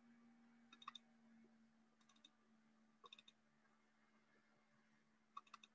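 Near silence broken by four small clusters of faint computer-mouse clicks about a second apart, over a faint steady hum.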